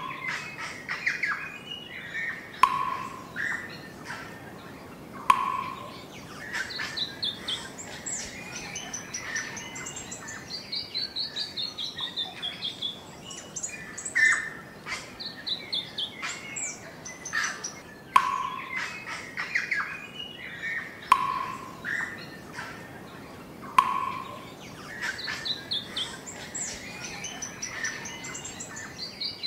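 Birds singing: a mix of chirps and trills, with sharp call notes every two to three seconds and runs of quick notes falling in pitch.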